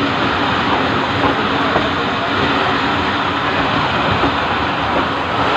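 Passenger train running on the track, a steady, loud rumble and rattle of the train's wheels and cars with no clear pauses.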